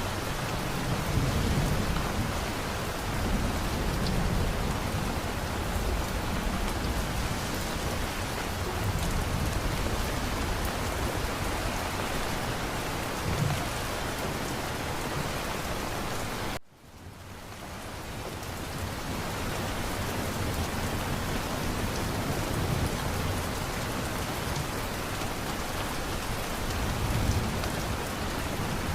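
Rainstorm: steady heavy rain with low rumbles of thunder now and then. A little past halfway the sound cuts out abruptly and fades back in over a couple of seconds.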